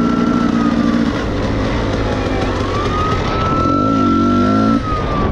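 Dirt bike engine running while riding, with a siren wailing over it: one high tone that falls about a second in, climbs again near the middle and slowly falls toward the end. The engine's note bends once, as the throttle changes, shortly after the middle.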